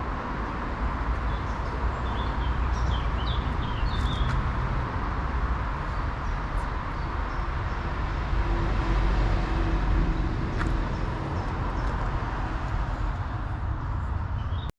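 Steady rumble of road traffic from a nearby main road, with a few short bird chirps early on.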